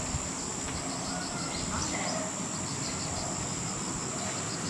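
Outdoor ambience of insects: a steady high-pitched trill with trains of short repeated chirps over it.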